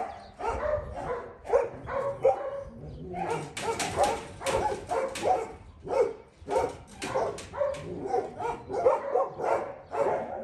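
Dogs barking over and over, two or three short barks a second without a break.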